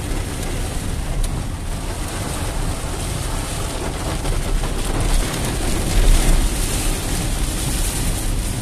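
Heavy rain on a moving car and the noise of its tyres on the flooded road, heard from inside the cabin as a steady rushing noise, with a brief low rumble about six seconds in.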